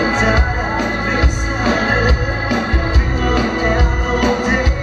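Live dansband music: a band with drums, electric guitars and keyboard playing a steady dance beat, the keyboard with an organ-like sound.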